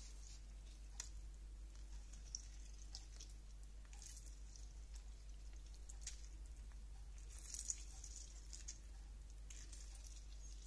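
Half a lemon squeezed by hand: faint squishing of the pulp and juice dripping, with a few small sharp ticks.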